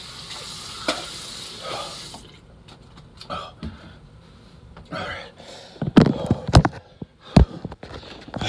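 A person vomiting into a toilet: a rush of liquid splashing into the bowl for about two seconds, then a few short, sharp spits and splashes, brought on by the capsaicin in an extremely hot chocolate bar.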